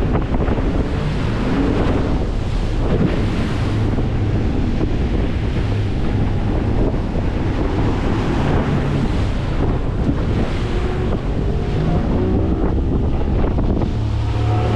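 Surf breaking and foaming around the bow of a small fiberglass fishing boat as it is taken out through the waves, with heavy wind buffeting the microphone. Loud and steady throughout.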